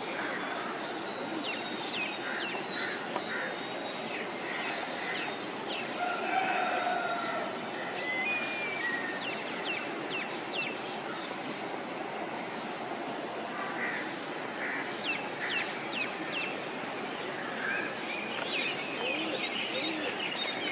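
Outdoor ambience of several birds chirping: many short high chirps and quick falling calls over a steady background hiss.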